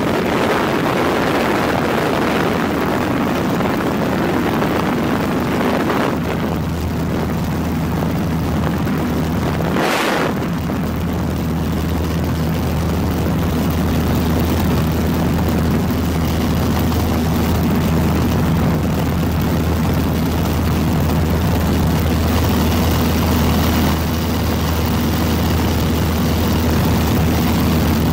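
Steady drone of an aircraft's engine heard from on board, a continuous low hum under a broad rushing noise, with a brief whoosh about ten seconds in.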